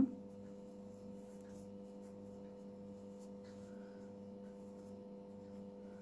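Faint, steady electrical hum, with faint soft rustling of hands handling crocheted yarn.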